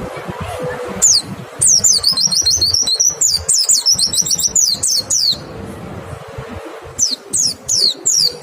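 White-eye (pleci) singing fast runs of high, downward-slurred whistles, the rapid 'nembak' song. The first run starts about a second in and lasts about four seconds; after a short pause a second run begins near the end.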